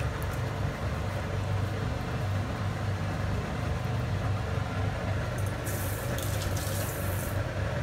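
Hands squishing and massaging raw chicken pieces in a vinegar and soy sauce marinade, over a steady low hum from a kitchen appliance. A short hissing rustle comes about six seconds in.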